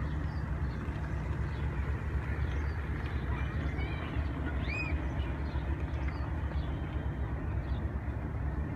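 Steady low outdoor rumble with a few faint, high chirps scattered through it, one of them a short arched glide about five seconds in.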